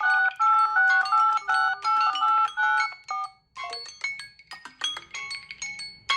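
Samsung Galaxy phone ringtones: a quick, repeating melody of electronic tones stops about three seconds in. After a brief gap, a different, quieter ringtone melody of short notes begins and gets louder near the end.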